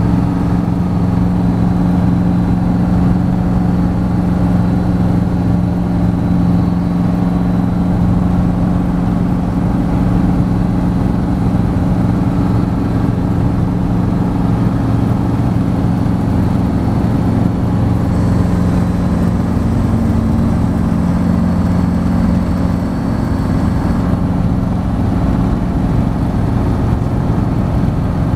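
Robinson R22 helicopter's four-cylinder piston engine and rotors heard from inside the cockpit, a steady drone through lift-off and climb out.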